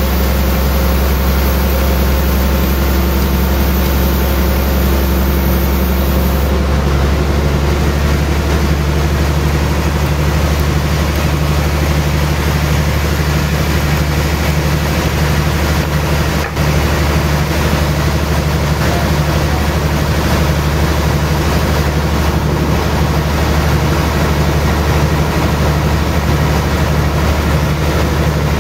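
A large sawmill band saw runs steadily with a loud, deep machine hum as it cuts a thick suar (monkeypod) log on the carriage. About six seconds in, the high hiss drops away and a lower hum comes in.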